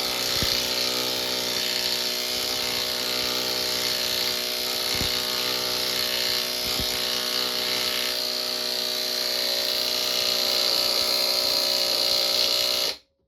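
Hercules 12-volt 1/4-inch cordless impact wrench hammering steadily under load as it drives a lag bolt in without a pilot hole, stopping suddenly near the end.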